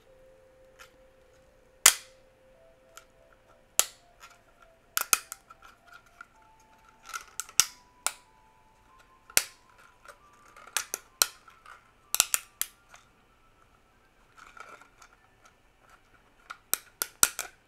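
A 3D-printed raft being pried and snapped away from a printed plastic part: a dozen or so sharp plastic snaps and cracks at uneven intervals, some in quick pairs or clusters.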